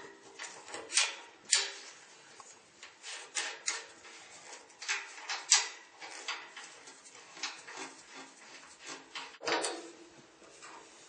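Irregular clicks, knocks and scrapes of tools and metal pipe fittings being handled while a newly hung radiator is connected up, with a few sharper knocks about a second and a half in, about five and a half seconds in, and near the end.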